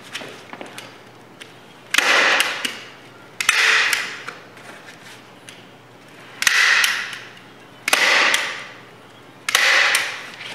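Hand staple gun fired five times at irregular intervals of about a second and a half, driving staples through the folded corners of a target face. Each shot is a sharp snap that dies away within about half a second.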